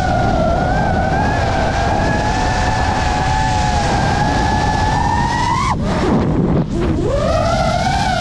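FPV quadcopter's brushless motors whining steadily under throttle, with wind rushing over the onboard microphone. About six seconds in, the throttle is chopped: the whine drops away suddenly, then spools back up about a second later.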